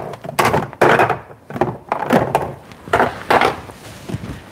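Rummaging through a kitchen cupboard: a series of wooden knocks and the clatter of containers being moved about.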